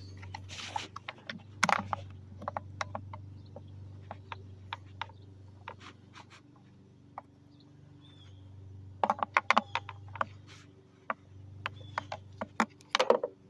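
Scattered plastic clicks, taps and rattles as the bulb sockets are twisted and pulled out of a tail light housing, with quick clusters of clicks about nine seconds in and again near the end, over a steady low hum.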